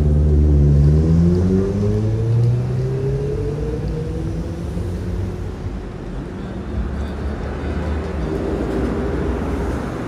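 A road vehicle's engine accelerating close by, its pitch rising over the first few seconds, then fading into steady street traffic noise.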